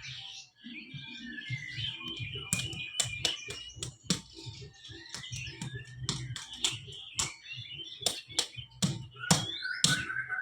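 Sharp, irregular slaps of a therapist's hands on a patient's body during a therapeutic massage, many strokes in quick clusters. Birds chirp steadily behind them.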